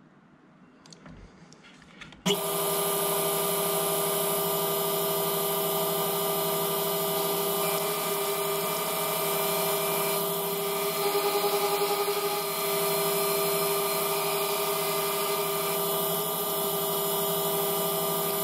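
A mill-drill switches on suddenly about two seconds in, then runs steadily with a whine of several steady tones while its end mill sweeps into the cam lobe blank on the rotary table.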